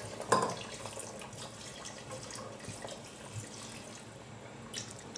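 White vinegar pouring from a bottle into a large pot of braised pork trotters, a steady trickle splashing into the broth.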